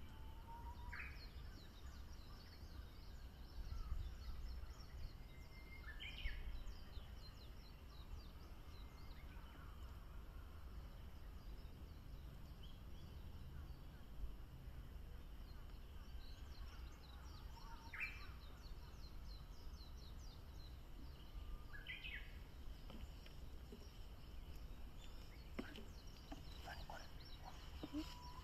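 A Japanese bush warbler (uguisu) singing its song five times, every few seconds: each is a low whistle followed by a quick rising flourish. Faint high chirps of other small birds run throughout.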